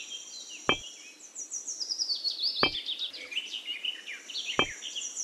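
Birds chirping and trilling steadily in high, falling phrases, with three short sharp clicks about two seconds apart as miniature clay bricks are set down one at a time on the model's sand-covered base.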